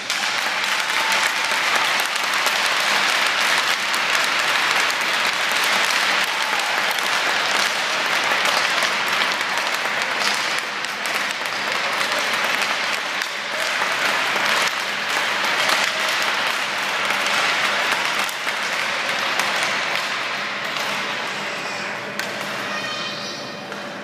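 Crowd applauding in an ice arena, a dense, steady clapping that thins out and fades near the end.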